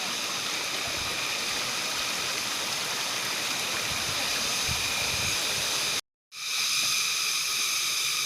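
Waterfall rushing: a steady hiss of falling water that cuts out for a split second about six seconds in.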